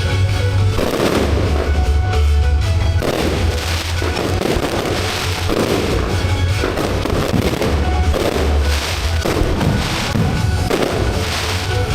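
Fireworks going off in quick succession, each burst a crackling rush, over loud music with a heavy bass line.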